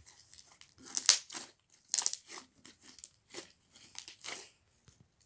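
Purple slime being squeezed and kneaded by hand, in irregular short bursts of a second or less, the loudest about a second in and again about two seconds in.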